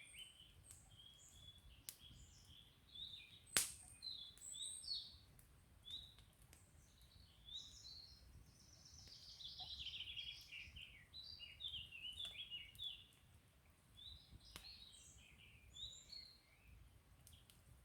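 Small birds chirping and singing in quick, overlapping phrases, faint. A wood campfire gives an occasional single sharp crackle, the loudest about three and a half seconds in and another near the end.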